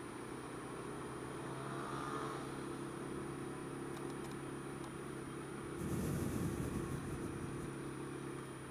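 Honda Dio scooter engine running steadily in slow city traffic, at an even pitch, with a louder rush of noise about six seconds in.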